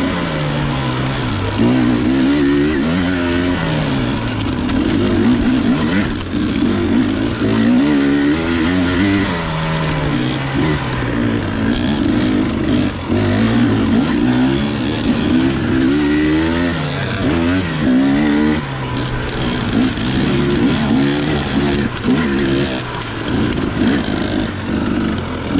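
300 cc two-stroke dirt bike engine revving up and down again and again as the throttle is opened and closed, its pitch rising and falling every second or two.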